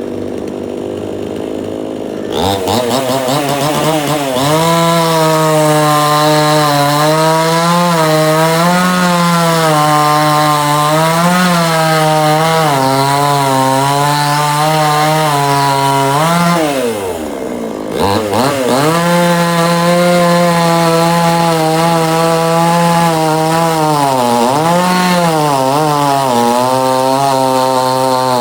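Chainsaw running at a low steady speed, then revved up about two seconds in and held at high speed, its pitch wavering as it cuts into wood. Past the middle the engine briefly drops off and falls in pitch, then revs straight back up and cuts on.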